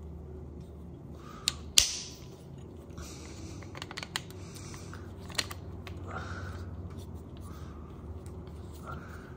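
Sharp plastic clicks and knocks of a Shimano brake-hose tool being handled and fitted on a hydraulic brake hose, the loudest click a little under two seconds in and a scatter of smaller ones after, over a steady low hum.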